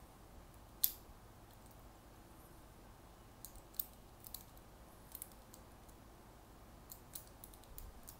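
Folding bicycle multi-tool's hex key tightening the bolt of a platform adapter on a Shimano SPD pedal: scattered sharp metallic clicks and clinks from the tool, the loudest about a second in.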